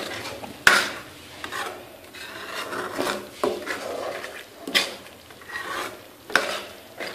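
Metal spatula scraping and stirring minced mutton cooked with yogurt around a metal karahi, in irregular strokes with a few sharper clacks against the pan.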